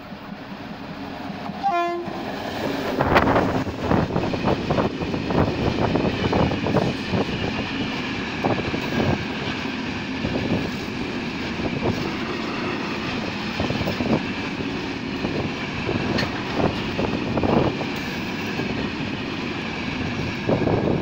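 A diesel locomotive gives a short horn blast about two seconds in, then runs close past, followed by a freight train of hopper wagons. The wagon wheels clatter over the rail joints with a steady high squeal.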